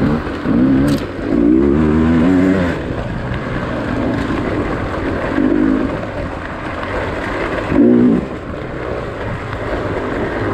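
Dirt bike engines running on a trail ride, the throttle opened and closed so the engine note rises and falls, with the strongest surges about one to three seconds in and again near eight seconds.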